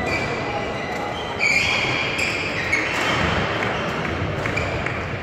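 Court shoes squeaking in short high-pitched squeals on a badminton court floor, with one sharp knock about half-way through.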